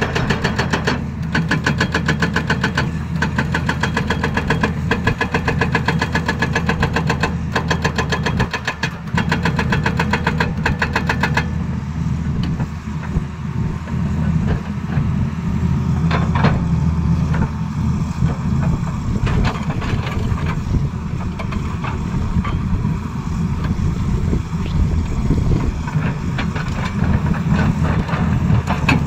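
Excavator-mounted hydraulic breaker hammering rock in a rapid, even rhythm of blows, stopping about eleven seconds in. The excavator's diesel engine keeps running underneath, with a few scattered single knocks while the hammer is lifted clear.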